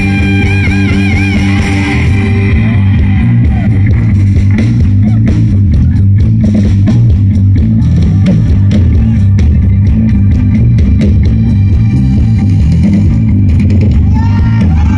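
Live rock band playing loud: heavy bass and drums under electric guitar. A held, wavering high note rides over the band in the first couple of seconds, then drum hits drive on densely.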